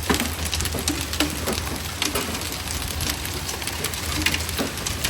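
Quarter-sized hail coming down with rain: a steady hiss with many sharp, irregular cracks of hailstones striking.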